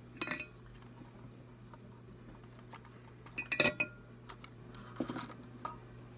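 A few short metallic clinks and clatters of small tools and parts being picked up and set down on a workbench, the loudest cluster about halfway through, over a low steady hum.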